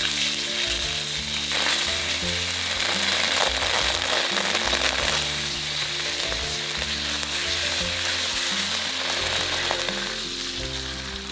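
Tomato paste sizzling as it fries in hot oil in a nonstick wok, with a spatula stirring it. Background music plays underneath, and the sizzle grows quieter near the end.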